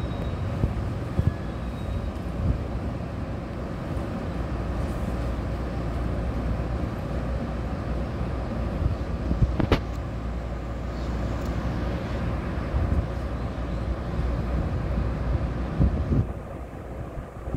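Taiwan Railway EMU500-series electric commuter train pulling slowly out of the station: a low, steady rumble of its motors and wheels on the rails, with a single sharp click about ten seconds in.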